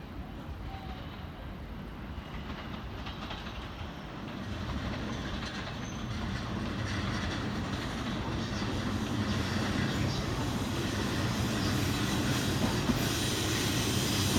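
Electric train on the tracks, steadily growing louder as it approaches, with its wheels clattering over the rail joints.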